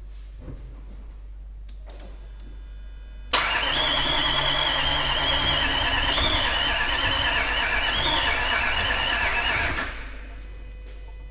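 A 2010 Range Rover Sport's TDV8 diesel V8 being cranked on the starter for about six and a half seconds without starting, with a high wavering whine over the cranking. It begins suddenly a few seconds in and cuts off. The engine has low compression on a couple of cylinders, with gases blowing past the pistons into the crankcase.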